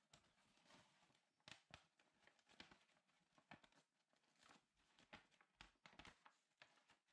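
Faint paper rustling and light taps as hands turn and press a folded kraft-paper origami frame holding a green paper sheet. The sounds come in short, irregular bits, a few each second.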